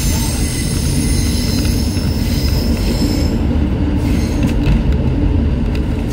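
Steel train wheels rumbling over the rails as a container freight train runs past close by, with high-pitched wheel squeal that fades out about three seconds in. A few sharp clicks from the wheels and track follow near the end.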